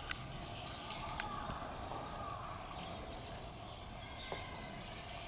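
Steady outdoor background noise with two faint rising-and-falling calls from Japanese macaques, about a second and two seconds in, and a few light clicks.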